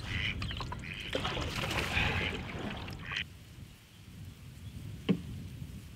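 Canoe paddling: water trickling and splashing off the paddle, with a low rumble of wind for the first three seconds. A single sharp knock comes about five seconds in.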